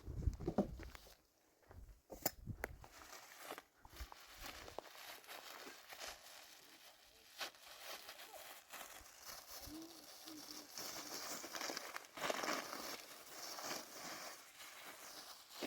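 Scattered knocks and clicks, then an uneven rustling, crinkling noise that grows louder after about eleven seconds.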